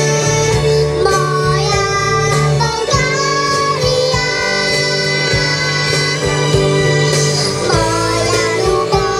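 Young girls singing a song into microphones over instrumental backing music, amplified through the stage sound system.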